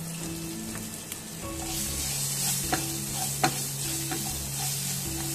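Sliced onion frying in hot oil in a nonstick kadai with a steady sizzle. About two seconds in the sizzle grows louder as a wooden spatula stirs the onion, and the spatula knocks against the pan a few times.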